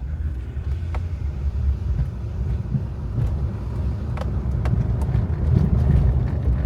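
Road and tyre rumble of a 2007 Hyundai Santa Fe being driven, steady and low, with only a few faint light clicks. There is no clanking from the front brake pads, which now sit tight in their caliper bracket.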